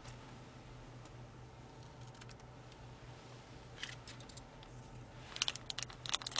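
Small clicks and crackles of plastic food packaging and a small plastic cup being handled at the table, sparse at first, then a quick cluster of sharper clicks near the end, over a faint steady low hum.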